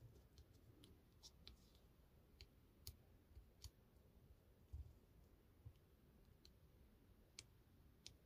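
Faint, scattered small clicks and ticks with a few soft thumps, from hands handling a paper card, a twine bow and a pen-shaped tool on a craft mat.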